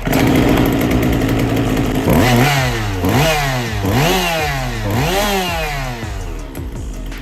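Old two-stroke chainsaw engine running after a simple adjustment: it idles steadily for about two seconds, then is revved up and let back down four times, about once a second, before settling.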